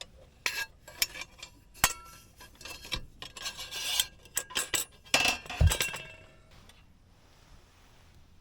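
Metal camp cookware being handled: a string of clinks and clatters with a brief scrape, and a heavier knock about five and a half seconds in.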